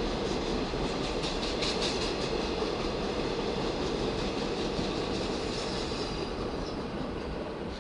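Empty ore cars of a freight train rolling past, their wheels clacking over the rail joints. The sound eases off a little near the end.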